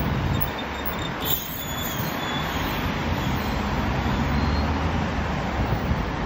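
Steady city road traffic noise from cars and a bus driving past on the street alongside, with a brief click about a second in.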